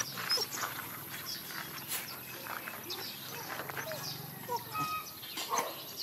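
A few faint, short whimpers and squeaks from mixed-breed dogs greeting and sniffing each other, with small scuffling sounds.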